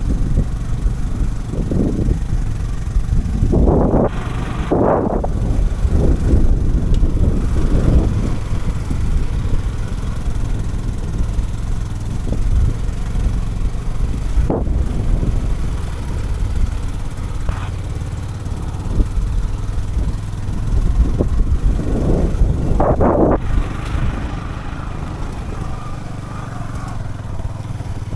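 Motorcycle engine running while riding a rough dirt track, a steady low rumble with two louder surges.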